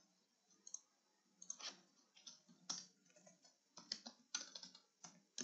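Typing on a computer keyboard: faint, irregular keystrokes that come in quick clusters from about a second and a half in.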